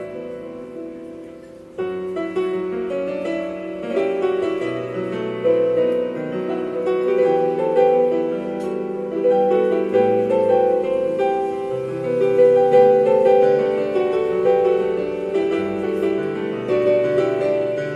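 Solo piano playing a song cover: melody over sustained chords. A phrase dies away, then a new, louder phrase starts about two seconds in and carries on.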